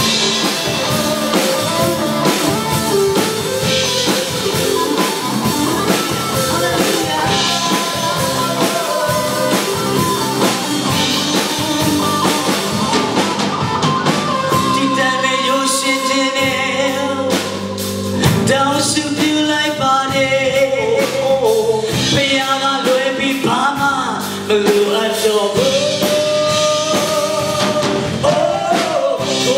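A male singer sings a song live with a band: drum kit and electric guitar playing.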